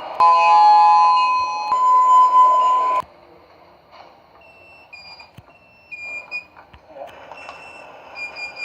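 Sigma elevator's electronic chime sounding two notes, the second coming in about a second and a half after the first, both cutting off together about three seconds in. This is the signal of the car arriving at a floor. Faint short high tones and light clicks follow.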